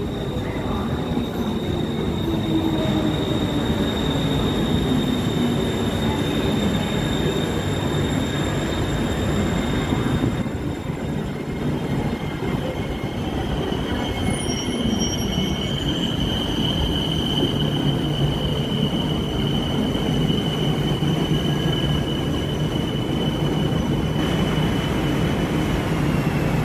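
BTS Skytrain electric metro train running on the elevated Sukhumvit line: a continuous low rumble with a steady high-pitched whine that shifts lower about halfway through.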